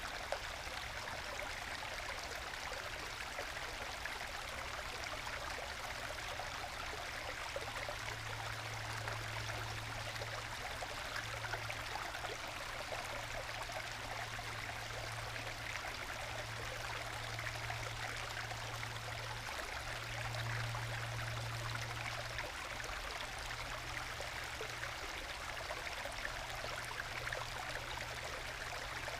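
Small forest stream trickling and gurgling over low waterfalls worn into solid bedrock, with small plunge pools between them: a steady, gentle babbling without breaks.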